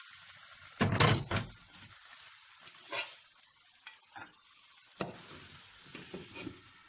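Meat and tomato filling sizzling in a frying pan, with a loud clank of a pot being set down on the gas stove's grate about a second in and a few light clinks of a glass lid over the pan.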